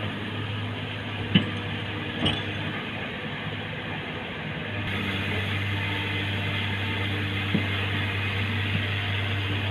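Komatsu excavator engine running steadily, with a few sharp mechanical clicks and knocks from the machine, the loudest about a second and a half in.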